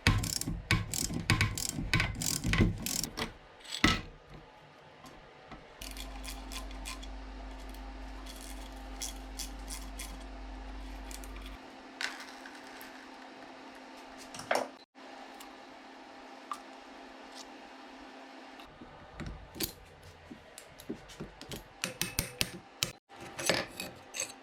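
Hand tools working on metal engine parts: irregular clinks, clicks and ratcheting in short, abruptly cut snippets, with a dense run of clicks near the start and again near the end.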